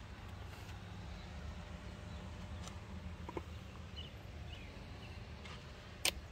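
Quiet outdoor ambience: a steady low rumble with a few faint bird chirps, and one sharp knock near the end.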